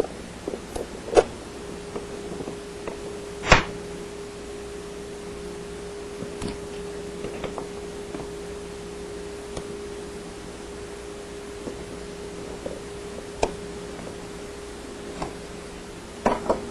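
Scattered metallic clicks and knocks of hose clamps being worked off a dishwasher's motor hoses, the loudest about three and a half seconds in. A steady low hum sets in about a second in and stops near the end.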